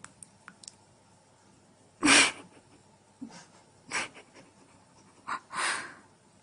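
A cat's short breathy huffs, four of them over a few seconds, the first about two seconds in the loudest, with a few faint clicks before them.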